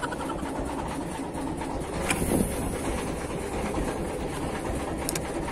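Small fishing boat's engine running with a steady low rumble, with a short click about two seconds in and another about five seconds in.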